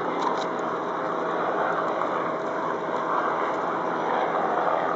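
Bell 206B-3 JetRanger III helicopter in flight, its turbine engine and two-blade main rotor making a steady sound with a thin, even whine running through it.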